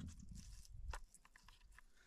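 Fillet knife cutting the side off a walleye: faint crunching and scraping as the blade works along the bones, with a sharp click at the start and another about a second in.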